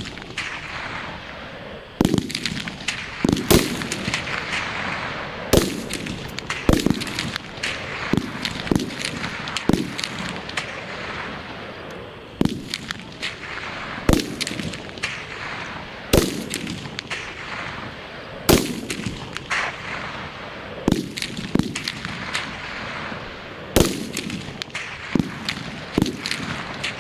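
Rifle shots fired singly at irregular intervals, two dozen or so, each sharp crack trailing off in an echo.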